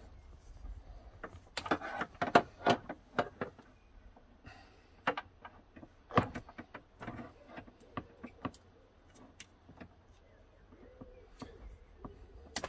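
Scattered clicks, knocks and rustles of battery cable, terminals and hand tools being handled, with a cluster of sharper knocks about two to three and a half seconds in.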